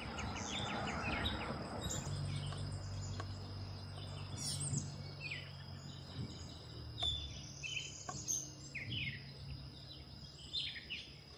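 Birds chirping and calling over a steady high insect drone. A faint low hum comes in about two seconds in and fades a few seconds later, with a couple of faint clicks.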